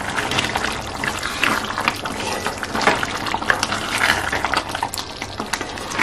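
Chicken curry simmering and bubbling in a steel kadai, stirred with a wooden spatula: a steady watery crackle with many small pops.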